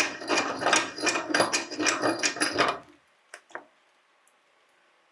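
Meat grinder working through cherries: a rapid, loud crunching clatter that stops abruptly about three seconds in, followed by two single clicks.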